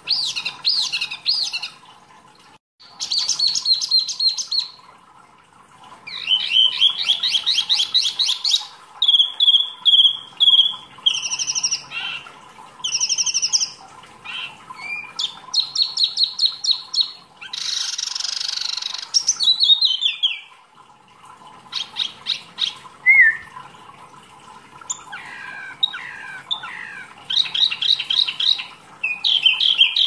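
Caged wambi mini songbird singing vigorously. It gives a string of separate high phrases of rapid trills, quick repeated notes and falling slurred whistles, with short pauses between them and one harsher rasping phrase about two-thirds through.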